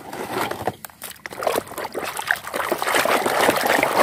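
A hand sloshing and stirring muddy, foamy water in a plastic basin full of plastic toys, with splashing and small knocks of the toys; the sloshing grows louder toward the end.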